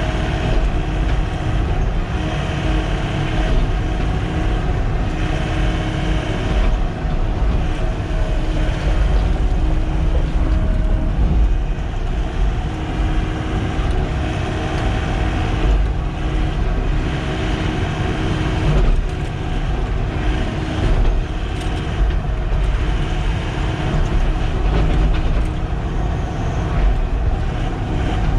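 Sany SY95 excavator's diesel engine running steadily under working load, with a few faint knocks.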